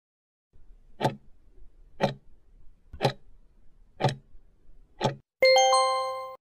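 Clock-tick sound effect counting down, five ticks one second apart, then a bell-like chime that rings and fades for about a second, signalling time up as the correct answer is revealed.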